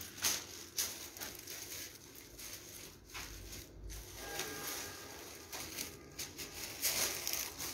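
Paper kites rustling and crinkling as a stack of them is handled and laid out, in a string of short rustles, loudest about seven seconds in.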